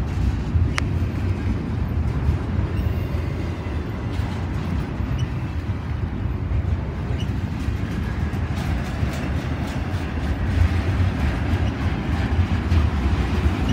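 Double-stack container freight train rolling past close by: a steady rumble of steel wheels on rail with occasional sharp clicks, growing a little noisier in the second half.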